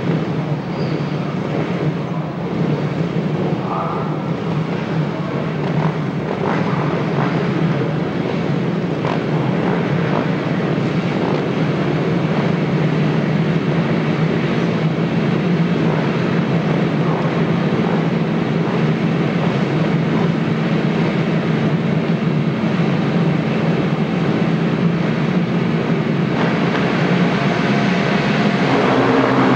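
A grid of KTM 690 Duke race bikes, their single-cylinder engines idling and blipped together in a steady drone that slowly grows louder. Revs rise near the end as the riders wait under the start lights.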